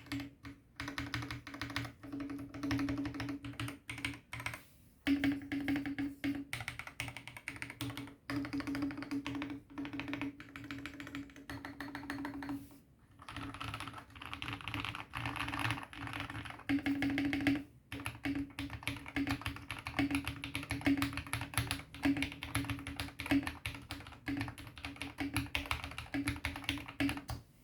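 Fast typing on a Vortexseries VX5 60% mechanical keyboard with lubed KTT Sea Salt Lemon switches, pudding keycaps and PE and EVA foam inside, giving a deep clack/thock. The keys are struck in dense runs with short pauses, one about 13 seconds in and another just before 18 seconds.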